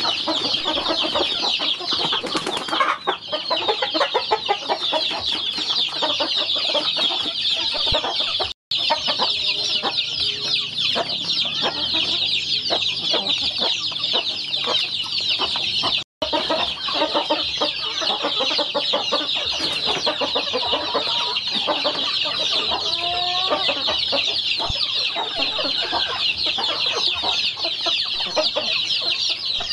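A chorus of many young chicks peeping continuously in high, rapid chirps, with lower clucking calls mixed in beneath.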